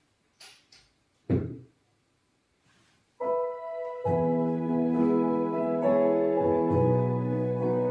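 A few small knocks and one thump, then about three seconds in a piano-sounding keyboard intro begins, filling out into sustained chords about a second later.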